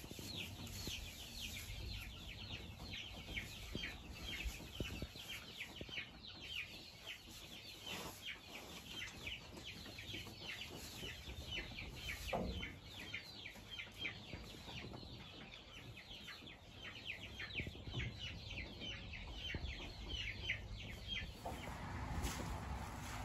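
Chickens peeping steadily: a continuous run of short, high chirps that fall in pitch, several a second. A short, lower sound breaks in once about twelve seconds in.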